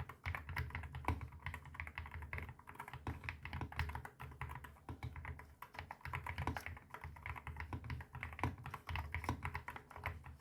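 Continuous fast typing on a mechanical keyboard fitted with Akko Rosewood linear switches, all-nylon housings with a nylon-blend stem: a dense, uneven stream of keystrokes, each with a deep low bottom-out under the click.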